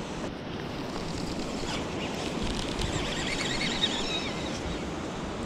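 Ocean surf washing against coastal rocks, with wind noise on the microphone.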